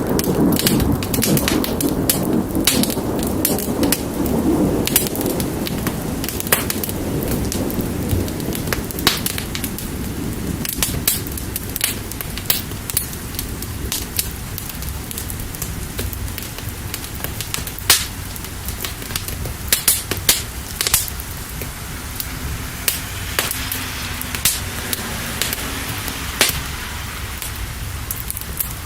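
Steady rain with a fire crackling, sharp pops scattered throughout. A low rumble of thunder fades out over the first few seconds.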